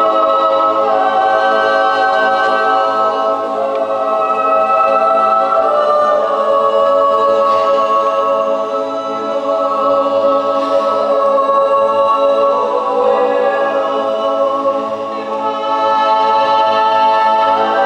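Swiss yodel choir of men's and women's voices singing a cappella in a church, holding long, slow chords in close harmony, with brief dips between phrases.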